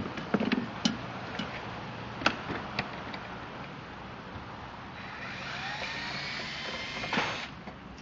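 A few light clicks and knocks of handling, then about five seconds in a power drill runs for roughly two seconds, its whine rising, backing out a screw on the refrigerator's control-board mount, and stops abruptly.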